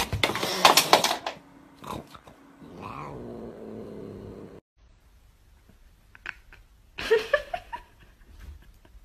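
Angry long-haired cat hissing and yowling at a slicker brush being pulled through its fur, loudest in the first second or so. Near the end comes a short rising call.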